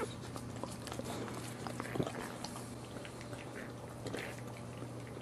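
Boxer mother dog licking and nosing her newborn puppies: wet licking and snuffling clicks, with faint squeaks from the pups and one sharper tick about two seconds in.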